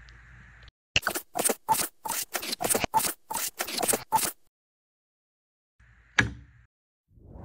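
Plastic LEGO Technic pins and connectors clicking as they are pushed together and onto a black Technic axle: a quick run of about a dozen clicks, roughly four a second, then a pause and one more click.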